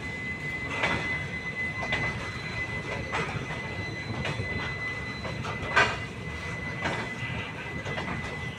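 Indian Railways passenger coaches rolling past, their wheels clacking over rail joints about once a second, the loudest clack about six seconds in. A thin, steady high-pitched tone runs beneath the clacks.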